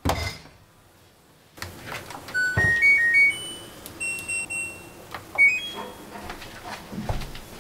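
Front-loading washer-dryer's control panel beeping as its buttons are pressed: a run of short electronic beeps at several different pitches, with a few soft knocks.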